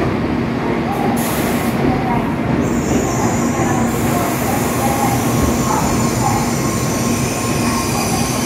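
N700S Shinkansen train rolling into the platform as it slows to a stop: a steady rumble of wheels and running gear with a steady hum underneath.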